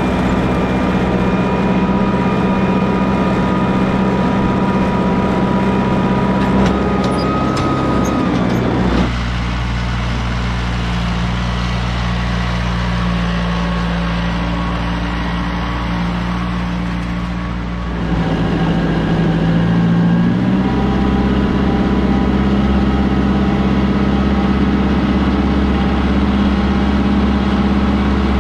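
New Holland compact tractor's diesel engine running steadily under load as it drags a box scraper through dirt. Between about nine and eighteen seconds in it is heard from farther off and quieter, then close up again.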